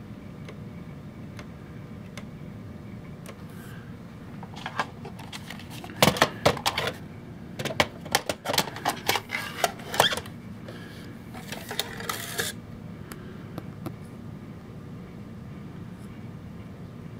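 A run of sharp plastic clicks and clatters, bunched in the middle, as the Bose Lifestyle 20 system and its remote control are handled to start a CD, over a low steady hum.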